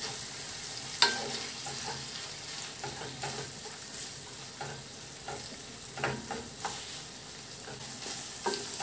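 Pork and onion sizzling as they fry in oil and butter in a frying pan, stirred with a wooden spatula that scrapes and knocks against the pan now and then, sharpest about a second in.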